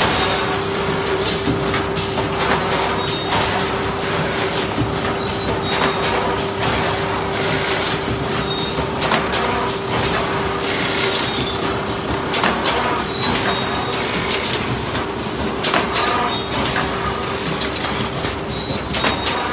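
Automatic leno mesh bag cutting and sewing machine running: a continuous mechanical clatter of rapid clicks and knocks over a steady hum.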